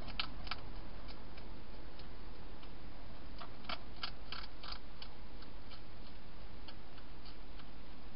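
Wild hedgehog crunching dry food: sharp, irregular clicks, bunched near the start and again around the middle, then sparser single ticks.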